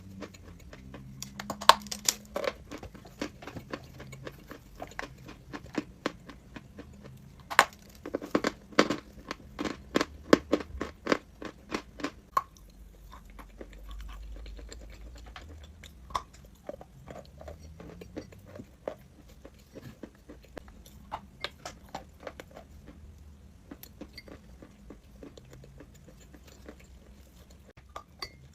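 Crunchy chalk being bitten and chewed close to the microphone, with dense crackling crunches. The crunching is loudest about two seconds in and again from about eight to twelve seconds in, then thins to softer, scattered crunches.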